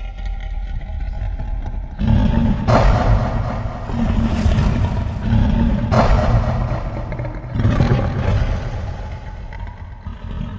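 A designed sound effect: a long, low rumble with a faint tone that rises slowly. It swells suddenly louder about two seconds in and again around six and seven and a half seconds, then dies away near the end.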